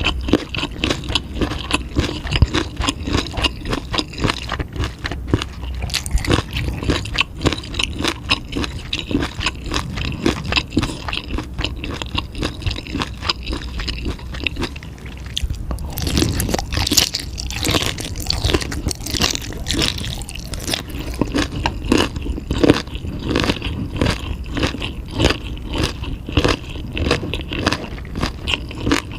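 Close-miked chewing and biting: a dense run of crunchy, wet mouth clicks as food is chewed. It gets busier and louder about halfway through.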